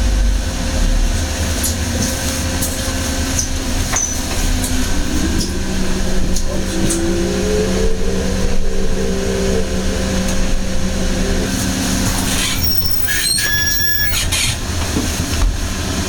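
Inside a moving city bus: a steady low rumble from the drivetrain, with a whine that rises in pitch and then holds level. A few seconds before the end, a brief cluster of high beeps and clicks.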